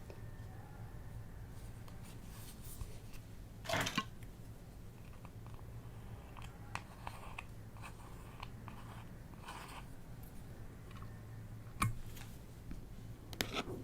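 Hands working slime and crumbled makeup: a few short crackles and scattered faint clicks over a low steady hum.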